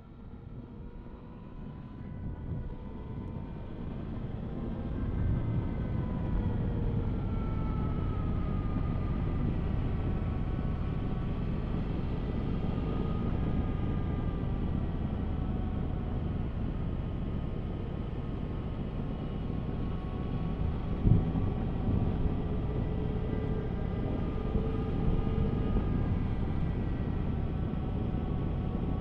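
Yamaha Tracer 900's three-cylinder engine under way on a ride, its pitch rising and falling with the throttle, over rumbling wind and road noise; it builds up over the first few seconds, with one short knock about two-thirds of the way through.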